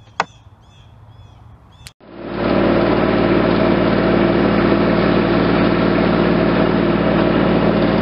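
Bobcat tracked skid-steer's engine running steadily at an even speed, starting suddenly about two seconds in.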